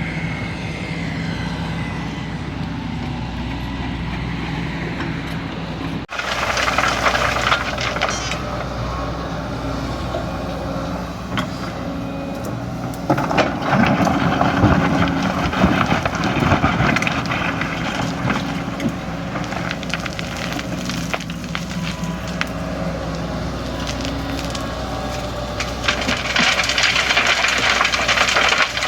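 Kobelco excavator's diesel engine running steadily. After an abrupt break about six seconds in, a long stretch of crunching and cracking with many sharp knocks and clanks over the machine's engine, loudest in the middle and again near the end.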